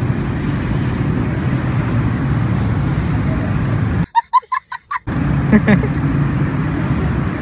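Steady low rumble of road traffic. About four seconds in it drops out for a second, and a short run of about six pulsed, high-pitched notes plays in the gap.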